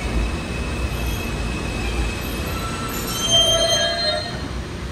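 New York City subway train (F train) rolling to a stop alongside the platform: a low rumble with a thin steady squeal, then a cluster of high brake squeals about three seconds in as it halts.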